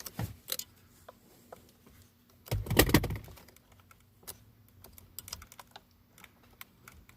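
Irregular small clicks and taps, with a louder clatter of handling about two and a half to three seconds in.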